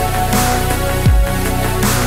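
Electronic background music: sustained synth tones over deep bass drum hits that drop in pitch, with hissing snare or cymbal hits.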